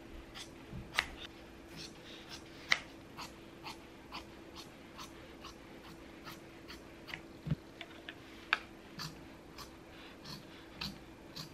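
Fabric shears snipping through woven fabric in a run of short, crisp cuts, about two a second and uneven in loudness.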